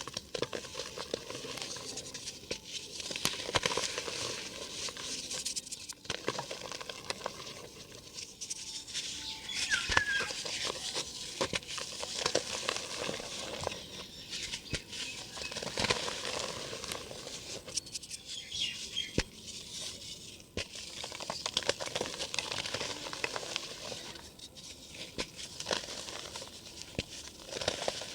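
Dry cement dirt crumbling: a continuous run of gritty crunches and crackles with many small clicks and a few sharper ticks.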